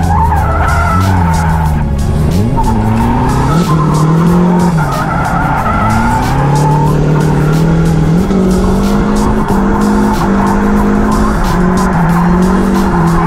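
Nissan 240SX S14's turbocharged SR20DET four-cylinder engine revving up and falling back over and over while the car drifts, heard from inside the cabin, with tyres skidding on the tarmac.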